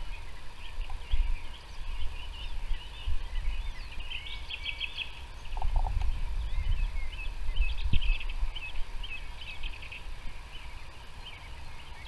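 Several small songbirds singing and calling at once, many quick chirps and trills, over a low uneven rumble.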